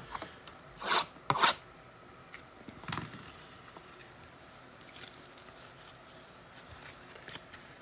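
Trading card packaging being torn open and handled: a few short tearing or ripping sounds about a second in and again near three seconds, then faint rustling.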